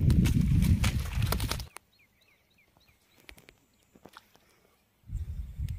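Low rumbling outdoor noise with clicks and rustles that cuts off abruptly, leaving near quiet in which a bird chirps faintly several times, then a short burst of the rumble near the end.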